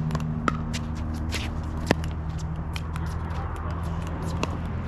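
Pickleball paddles hitting a plastic ball: sharp pops, the loudest about two seconds in, with many fainter pops from other games. A low steady hum runs underneath.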